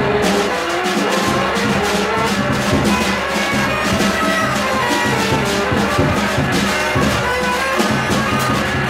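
Live music: a saxophone plays long held notes that shift in pitch, over drums struck with sticks.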